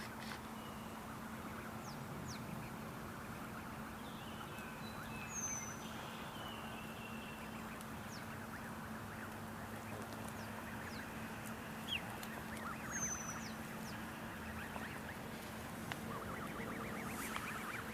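Faint chirps and calls of small wild birds, short high notes every few seconds, over a steady low hum. A quick rattling series of notes comes near the end.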